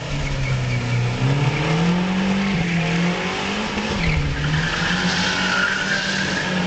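2.3-litre turbocharged car engine, called a bad motor, revving: its pitch climbs, drops briefly about four seconds in, then rises again, with a high whine near the end.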